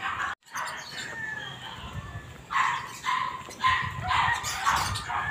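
A dog barking repeatedly, about two barks a second, louder from about halfway through.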